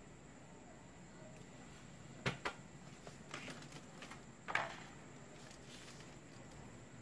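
A wire pet cage with a plastic floor grid knocking and rattling as an Asian palm civet scrambles down off it: two quick sharp knocks, a few soft scuffles, then a louder clack with a brief rattle about four and a half seconds in, over a low hiss.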